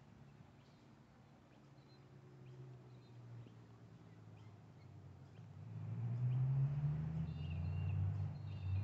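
A low rumble that swells about five seconds in and becomes the loudest sound, with small birds chirping over it near the end.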